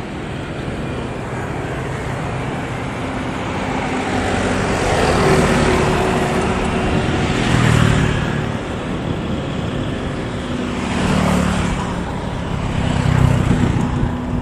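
Motor engines droning steadily, swelling louder several times as vehicles pass close by, about five, eight, eleven and thirteen seconds in.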